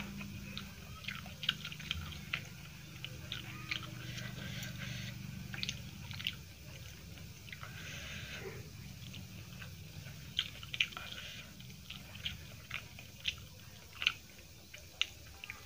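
Close-miked chewing of rice and egg curry eaten by hand, with many short mouth clicks and smacks at irregular intervals over a low steady hum.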